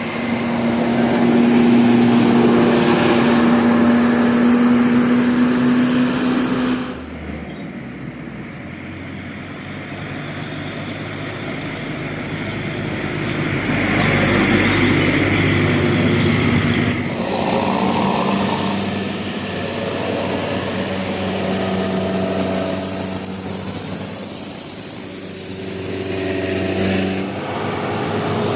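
Buses passing on a road. A loud, steady held horn chord sounds for about the first seven seconds, then engine and tyre noise as vehicles go by, with a high thin whine in the later part.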